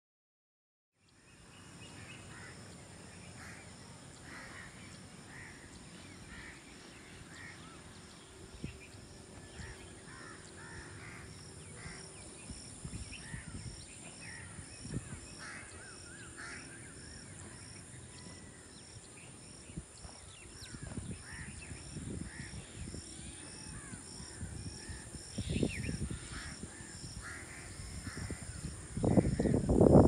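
Crows cawing again and again over a steady, high, pulsing background. Wind gusts buffet the microphone, growing stronger and loudest near the end.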